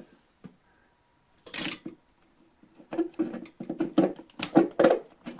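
Small metal clicks and scraping at a wall outlet: a short scrape about a second and a half in, then a run of quick, irregular clicks and rattles from about three seconds on, as a probe tip is pressed into the outlet's push-in wire-release slot.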